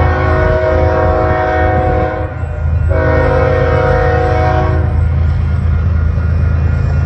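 The lead BNSF diesel locomotive's air horn sounds for a grade crossing: a long blast ends about two seconds in, and after a short pause a second long blast lasts about two seconds. A steady low rumble runs underneath.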